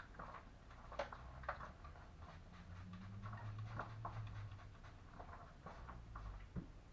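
Faint, scattered short spritzes and clicks of a hand trigger spray bottle dampening hair, a few seconds apart, over a low hum in the middle.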